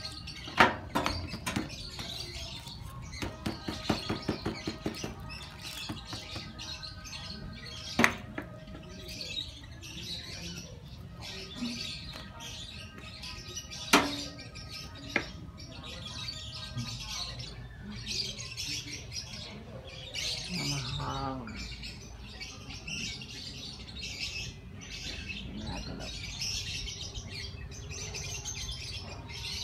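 Small birds chirping throughout. Several sharp knocks are heard over them, the loudest about half a second, eight and fourteen seconds in, with a quick run of clicks around three to five seconds in.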